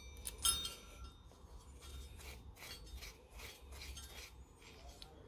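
Steel engine lift plate being set down on the intake manifold studs of a Ford Y-block V8, with two light metal clinks, then faint scraping about two or three times a second as nuts are run onto the studs by hand.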